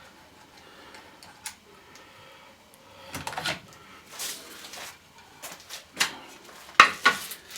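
Small screws and fuse box parts being handled by hand: scattered clicks, scrapes and rustles. The loudest is a sharp click near the end.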